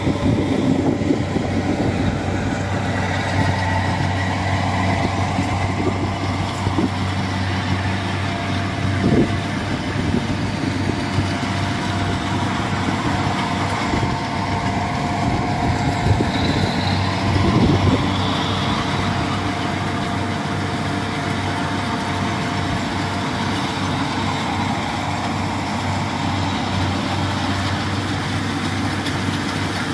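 Kubota rice combine harvester running steadily as it cuts ripe rice: a continuous engine hum with a steady whine from the working machinery above it.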